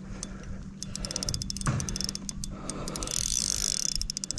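Spinning reel clicking in quick ratcheting runs as a hooked fish is fought, with a low steady hum underneath.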